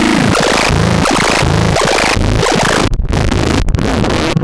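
Noisy electronic synthesizer music: a dense, gritty wash over low pulsing tones, with a few brief dropouts in the second half.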